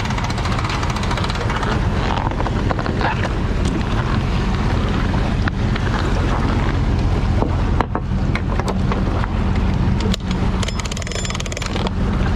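An engine running at a steady speed, with heavy wind buffeting the microphone.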